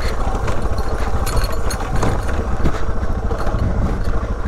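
Suzuki DR dual-sport motorcycle's single-cylinder four-stroke engine running steadily under way off-road, with a few sharp knocks about one and two seconds in.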